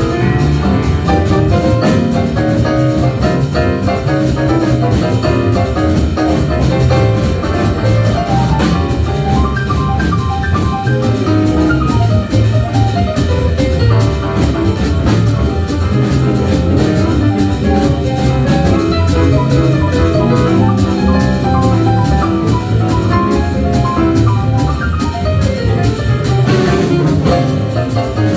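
A jazz band playing live, with a drum kit keeping a steady cymbal pulse under a walking bass and melodic instruments.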